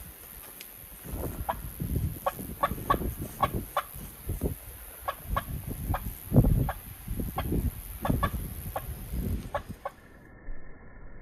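Turkey clucking: a series of short, sharp calls a few per second at uneven spacing, over low rumbling thumps. Near the end the sound turns muffled.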